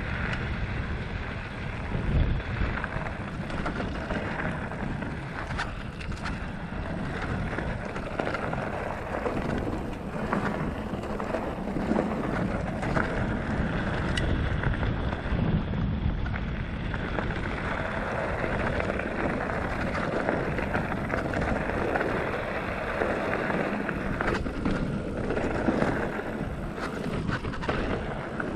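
Felt Decree 3 full-suspension mountain bike riding fast downhill on a dirt and gravel trail: tyres crunching and the bike rattling, with wind rushing across the microphone. Occasional knocks come as it hits bumps, the loudest about two seconds in and again near the end.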